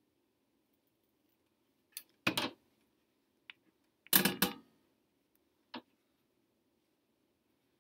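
Scissors and small objects handled on a tabletop: a few short knocks and clicks, the loudest a brief clatter about four seconds in.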